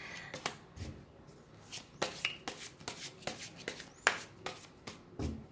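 A tarot deck being shuffled by hand: scattered soft clicks and slaps of the cards, with a sharper snap about four seconds in and a couple of soft thuds.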